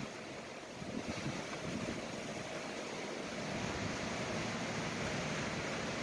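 Strong wind of about 30 miles an hour blowing, a steady rushing noise with low rumbling gusts buffeting the microphone.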